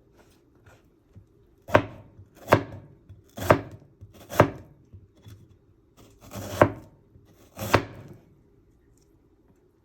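Knife chopping food on a cutting board: six slow, separate chops about a second apart, with a longer pause in the middle.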